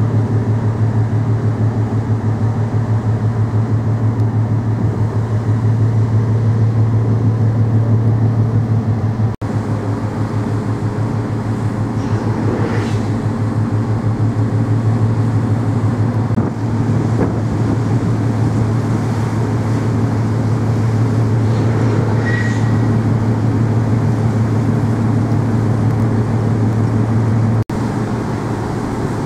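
A steady, low engine hum with a fast, even throb. It is broken abruptly twice, about a third of the way in and near the end.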